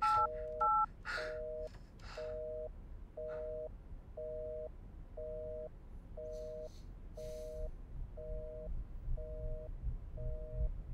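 Two short telephone keypad tones, then a busy signal: a pair of tones beeping on and off in a steady rhythm, about three beeps every two seconds, the sign that the line is engaged and the call is not getting through. A low rumble builds underneath near the end.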